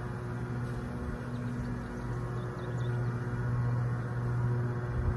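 Package of honeybees buzzing in a steady, low drone, swelling slightly in the middle.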